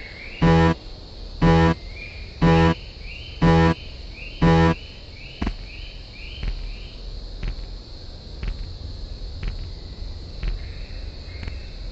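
Railroad crossing alarm bell ringing about once a second, five rings, then stopping about five seconds in; after it, faint ticks about once a second with short rising chirps.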